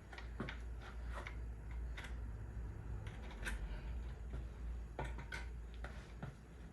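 Scattered light clicks and rustles of the removed motorcycle tail light and its wiring being handled, over a steady low hum.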